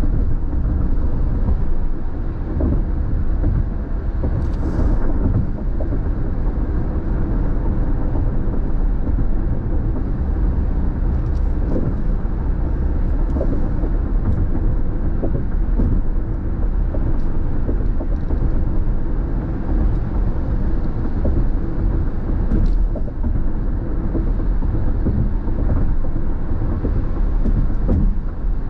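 Steady road and tyre noise heard inside a car cabin at freeway speed on wet pavement: a constant low rumble with a lighter hiss above it. A few brief faint clicks are scattered through it.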